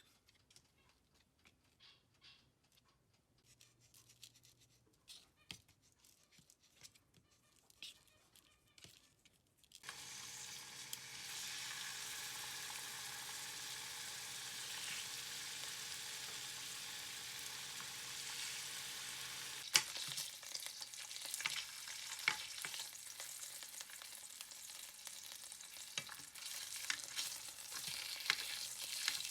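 Faint light clicks and knocks, then about ten seconds in a sudden, steady sizzle of food frying in hot oil in a pan, with occasional sharp clicks over it.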